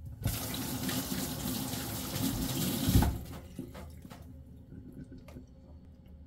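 Kitchen tap running into a stainless steel sink with a hand rinsed under the stream for about three seconds, then shut off abruptly. A few faint knocks follow.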